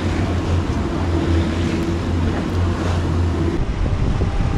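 A boat's motor humming steadily under wind buffeting the microphone and the rush of water. The hum drops out about a second before the end, leaving the wind and water noise.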